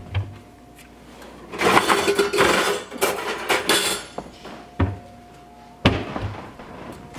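A wooden kitchen cabinet door being opened, then a wire cooling rack clattering and scraping loudly for about two seconds as it is pulled out from among other metal pans, followed by a couple of sharp knocks as the cabinet door shuts.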